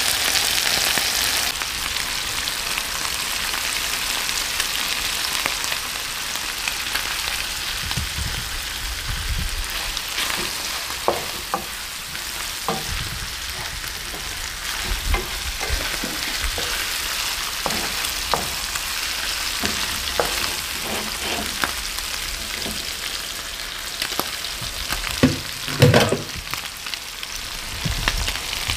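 Food sizzling as it fries in a pan, with a utensil stirring and knocking against the pan now and then; the loudest knocks come near the end.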